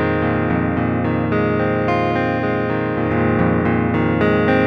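Clean electric guitar through the neck pickup, direct and unprocessed: picked notes ringing over one another. The guitar is a Stratocaster-style instrument being tested for sustain and dead spots with nickel-silver against stainless-steel frets.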